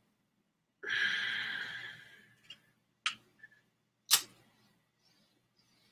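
A long breathy exhale that fades away, then a few short sharp clicks as a tobacco pipe is handled at the mouth, the loudest about four seconds in.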